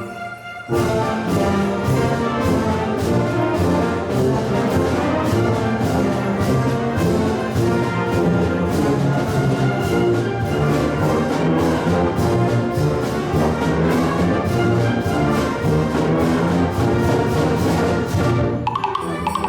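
A school wind band playing, brass to the fore, over a steady beat of percussion strikes; the music comes in just under a second in and shifts near the end.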